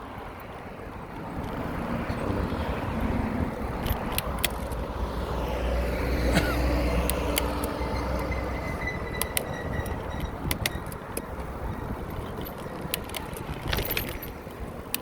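A car goes by, the sound building over the first several seconds and slowly fading. Over it come scattered sharp metallic clicks and rattles from a bicycle's shifter and chain as the rider works the gears, which will not shift from the 2nd to the 1st chainring.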